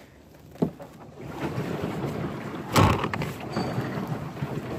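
Wind buffeting the microphone with water sloshing around a small paddle boat, starting about a second in, with a light knock just before it and a loud thump near three seconds.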